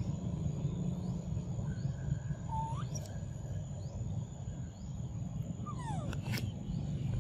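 Outdoor ambience with a steady low rumble, over which come two brief high squeaky animal calls: one that sweeps sharply upward about two and a half seconds in, and one that slides downward about six seconds in, followed at once by a sharp click.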